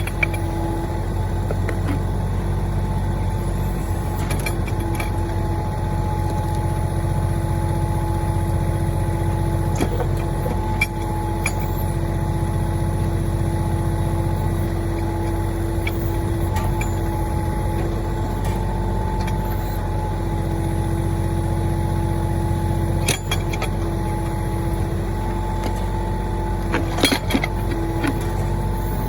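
Mahindra 1626 tractor's three-cylinder diesel engine running steadily with a steady whine while working the backhoe, with a few sharp knocks near the end.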